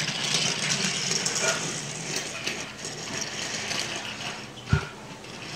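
Toy train cars rolling and rattling along blue plastic track, fading as they run on. A single sharp knock comes near the end.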